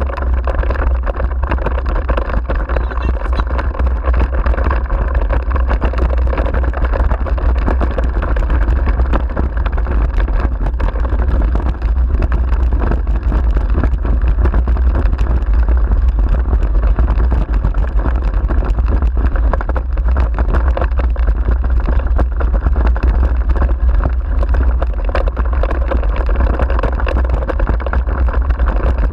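Continuous rumble and rattle of a wheeled dog-rig rolling over a rough grass-and-dirt track, with a steady low wind rumble on the microphone.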